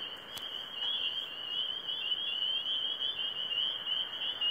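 A dense chorus of frogs calling at night: many overlapping high-pitched calls merge into one continuous ringing, with a softer, lower chorus beneath. There is a single faint click about half a second in.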